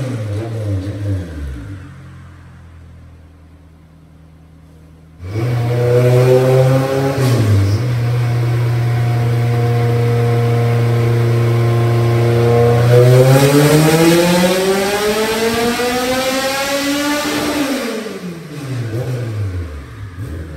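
High-compression Honda K24 four-cylinder race engine running on a chassis dyno. It winds down to a quiet idle, then runs loud at a steady speed. About halfway through it revs up in one long rising sweep, a dyno pull, then falls back as it coasts down.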